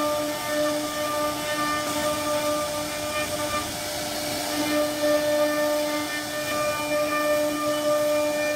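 CNC router spindle carving a wooden door panel: a steady high whine with a hiss of cutting over it.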